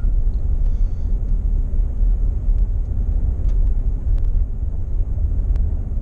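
Steady low rumble of a vehicle driving along a dirt road, with a few faint ticks.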